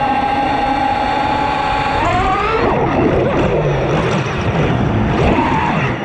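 FPV freestyle quadcopter's brushless motors and propellers whining: a steady high whine for about two seconds, then the pitch jumps up and swings up and down as the throttle changes, rising again near the end.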